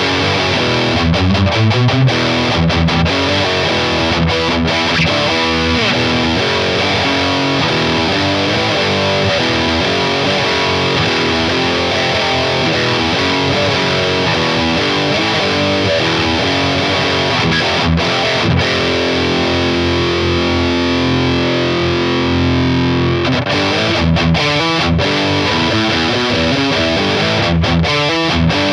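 Harley Benton SC-Custom Plus electric guitar with EMG active pickups played through heavy distortion, running through busy riffs and runs, with a chord held for about three seconds a little past two-thirds of the way in.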